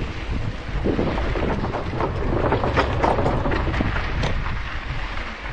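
Wind rumbling on the microphone during an electric mountain-bike ride, with scattered crackles. It dies down near the end as the bike slows to a stop.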